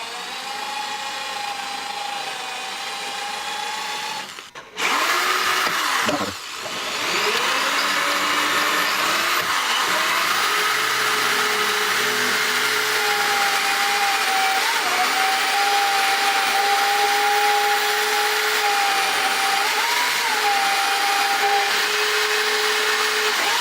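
Ryobi drill boring a starter hole into a broken frame-rail bolt, a steady whine. It stops briefly about four seconds in, winds down and back up, then runs on steadily and a little louder.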